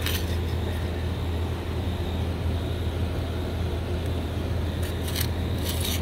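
Steady low outdoor rumble, with a few short scrapes of a small metal garden trowel pushing wet soil, near the start and again near the end.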